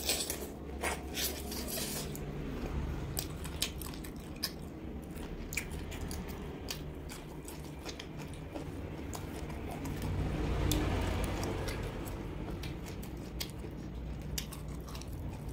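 Close-up biting and chewing of roasted duck, with irregular short crunches and clicks from the crisp skin and bone. A steady low rumble runs underneath and swells for a couple of seconds about ten seconds in.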